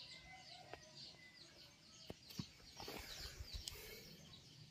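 Faint outdoor ambience with small birds chirping in the distance, broken by a few soft clicks and some low thumps about two to three and a half seconds in.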